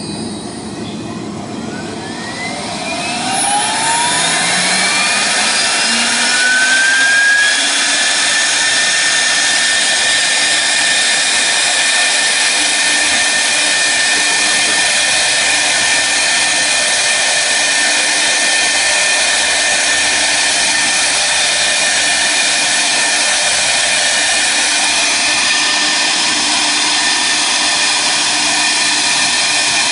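CNC router spindle spinning up after the job is started: a whine rising in pitch over about the first seven seconds, then running at a steady high whine.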